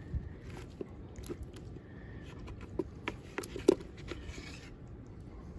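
Hands handling a killie trap: scattered light clicks, taps and rustles, the sharpest about three and a half seconds in, with a short hiss about four seconds in.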